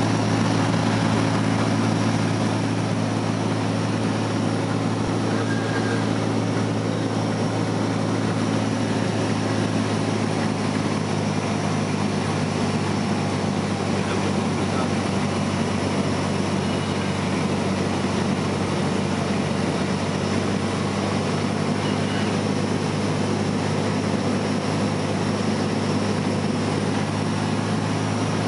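Single-engine light plane's piston engine and propeller droning steadily, heard from inside the cockpit during the landing approach.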